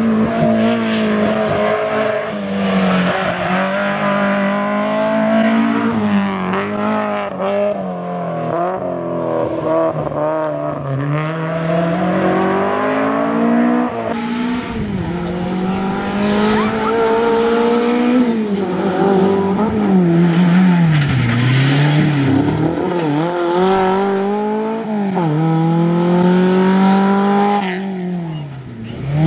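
Competition car engines revving hard, their pitch climbing through each gear and dropping at each shift or lift for a bend, with a change of car partway through. Near the end the sound comes from a Simca 1000 rally car.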